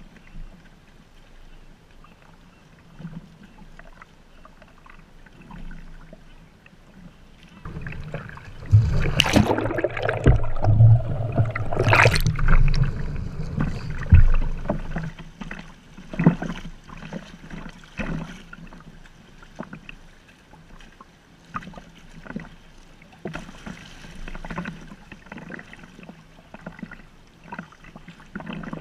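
Sea kayak paddling heard from on the boat: water splashing and lapping against the hull, with paddle strokes and drips. A loud stretch of splashing comes about a third of the way in and lasts several seconds, then softer scattered splashes.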